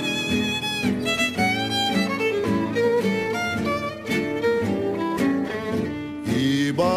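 Music: an instrumental passage of a song, a melody line sliding between notes over sustained lower accompaniment.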